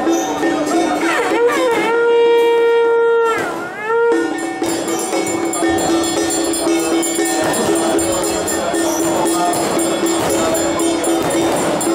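A Taoist ritual master's ox-horn trumpet sounding one long blast: it slides up into a held note about a second and a half in, then drops away near the fourth second, followed by a brief second note. The blast is heard over ongoing temple ritual music with a steady held tone and jingling.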